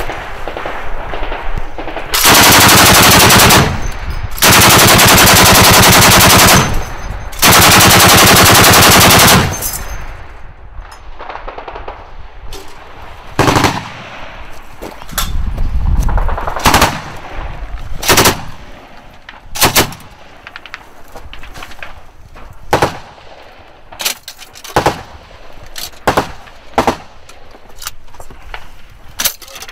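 A tripod-mounted heavy machine gun fires three long bursts in the first ten seconds, loud enough to clip. After that come scattered single gunshots and short bursts, with a deep thud about halfway through.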